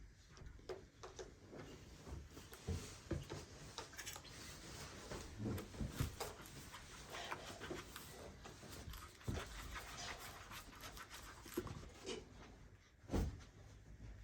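Faint scattered taps, clicks and light knocks of bottles, a container and a stirring utensil being handled while slime ingredients are poured and mixed, with a louder knock near the end.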